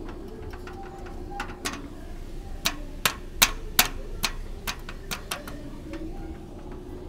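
A run of about fifteen sharp, irregular taps or clicks from a small hard object, loudest in the middle, over a steady low hum.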